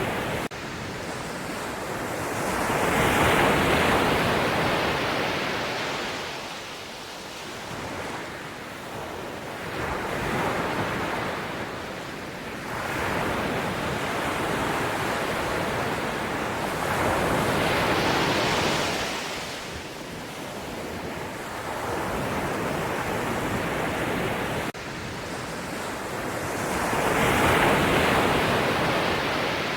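Ocean surf: waves breaking and washing up the shore, swelling and ebbing in a slow rhythm of about one wave every eight seconds, the loudest about four seconds in and near the end.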